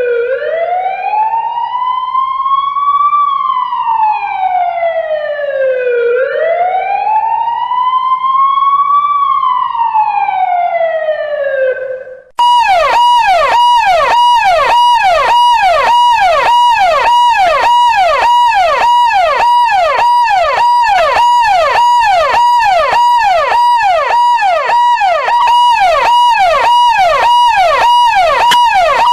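Emergency vehicle siren: a slow wail rising and falling about every six seconds, twice, then after a brief break it switches to a fast yelp, about two quick sweeps a second.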